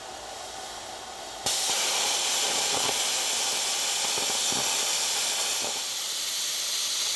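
Handheld plasma cutter cutting through a steel lower differential mount: a steady hiss that jumps sharply louder about a second and a half in and then holds.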